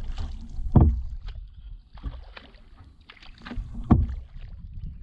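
Kayak being paddled, with splashy paddle strokes in the water over a low rumble. Two louder thumps land about a second in and just before the four-second mark.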